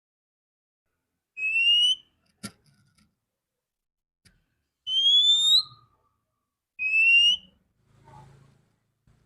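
Female oriental magpie-robin giving three clear, rising whistled notes, each under a second long and a couple of seconds apart. A single sharp click falls between the first two notes.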